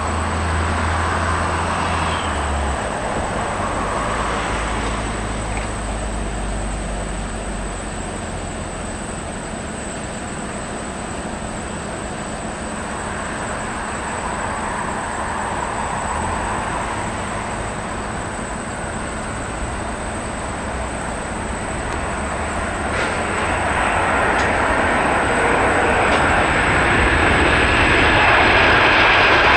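Four jet engines of a Boeing 747 freighter on approach, touchdown and rollout, heard as a steady rushing engine noise. The noise grows louder from about 23 seconds in as the jet rolls down the runway toward the listener.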